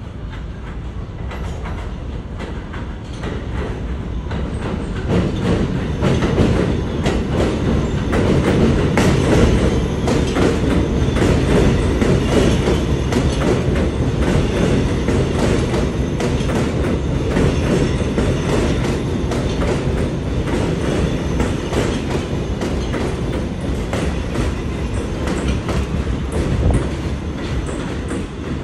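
New York City Subway R211A train running past on the elevated steel structure, its wheels clacking over the rail joints in a rapid string of clicks. The noise builds over the first five seconds as it arrives, stays loud, and eases a little near the end.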